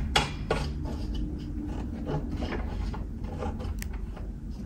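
Hand turning the threaded height-lock knob on a metal laptop-stand column, with a run of small clicks, taps and scrapes of metal parts.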